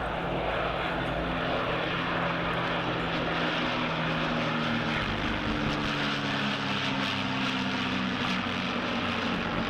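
Avro Lancaster's four Rolls-Royce Merlin piston engines droning steadily in a low flypast, the pitch of the engines sliding gently lower as the bomber passes.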